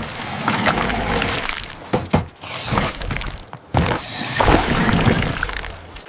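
Several sharp cracks and clattering impacts, with noisy hissing stretches between them, cutting off abruptly a few times.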